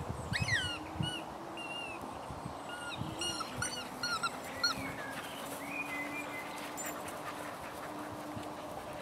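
Dogs at rough play, giving a quick run of short high-pitched yelps and squeaks through the first half, which stop about five seconds in. A faint steady hum runs beneath.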